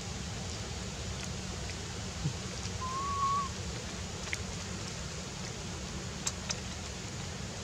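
One short whistle-like animal call about three seconds in, level in pitch with a slight rise, over a steady outdoor hiss and low rumble. A few faint clicks fall in the second half.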